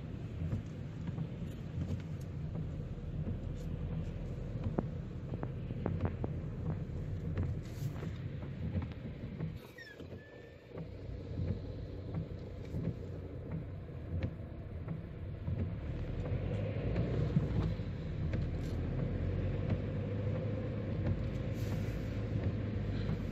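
A vehicle's steady low engine and road rumble, which drops away briefly about ten seconds in.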